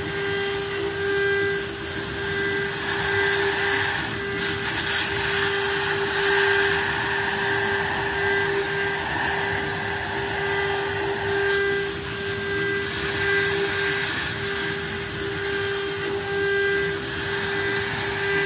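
CNC router's water-cooled spindle running at high speed while carving a board: a steady high whine over the hiss of the cutter, swelling and easing gently as the tool moves.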